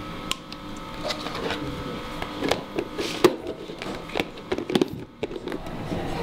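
Clicks and knocks of a clear plastic food container being handled, its lid pressed down and snapped shut on the box with a run of clicks near the end. A faint steady hum runs underneath.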